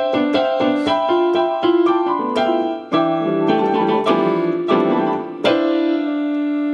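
Piano played as a quick run of single struck notes, moving into fuller chords about halfway through, with a last chord struck and left ringing near the end.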